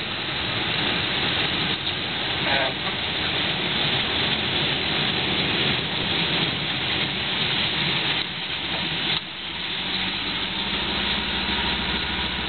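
Motorboat running across a lake: engine noise mixed with a steady rush of wind and water. A steadier low engine hum comes in about ten seconds in.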